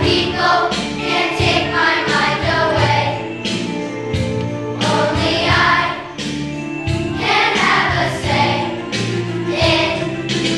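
Children's choir singing a song together over instrumental accompaniment.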